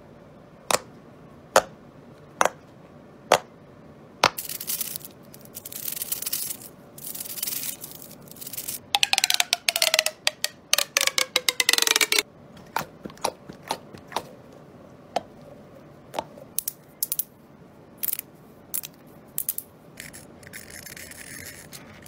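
Plastic fidget toys being handled, starting with four sharp pops about a second apart and then a stretch of rustling and clicking. A ribbed plastic pop tube is stretched and compressed, giving a whirring tone that glides down in pitch. Scattered clicks follow, and near the end comes a quick run of clicks from the buttons and switches of a fidget cube.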